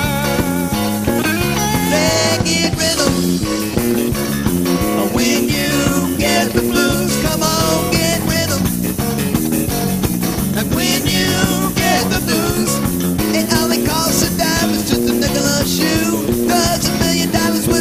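Rock band playing: electric guitar over bass and drums, steady throughout.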